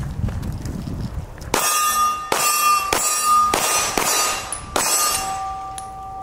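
Pistol firing five shots about half a second to a second apart, starting about a second and a half in, with a metallic clang ringing on after the shots as steel targets are hit; the ring is still sounding near the end.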